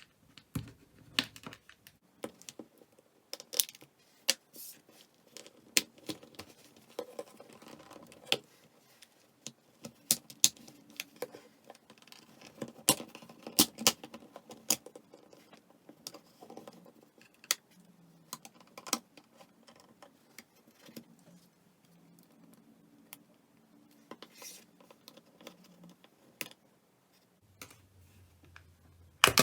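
Plastic clicks, snaps and scraping as the back plate of a Samsung C3590 flip phone is pried off its housing with a thin tool, the clips letting go in irregular sharp clicks.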